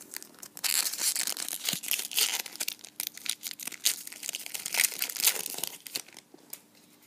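Trading-card pack wrapper crinkling as it is handled, a dense run of sharp crackles starting about half a second in and dying away near the end.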